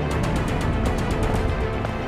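Dramatic background music with a quick, regular percussive beat.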